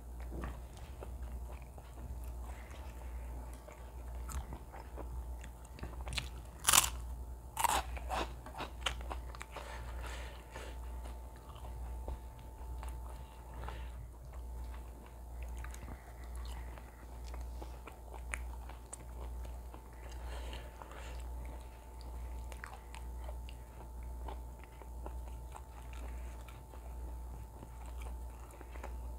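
Close-miked eating: a few loud crunching bites into a crisp fried snack chip about six to eight seconds in, then quieter chewing and soft mouth sounds as flatbread with mutton kofta curry is eaten by hand, over a steady low hum.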